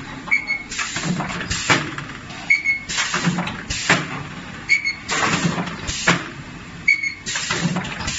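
Multi-spot resistance welding machine for steel panel radiators cycling about every two seconds, four times. Each cycle brings a short high beep-like tone, a rush of air, sharp pneumatic clacks as the electrode bank presses and releases, and a brief low hum.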